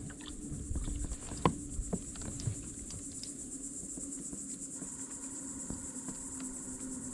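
Steady, high-pitched buzzing of insects, with a few light knocks in the first few seconds.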